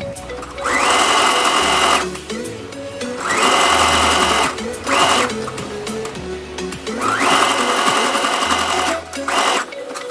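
Brother sewing machine stitching hair wefts onto a wig cap, running in bursts of up to about two seconds and stopping and starting about five times. Background music plays under it.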